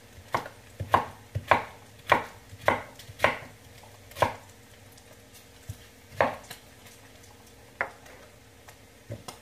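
Knife chopping cabbage on a wooden cutting board: a run of about seven crisp chops, roughly two a second, then a few slower, scattered chops.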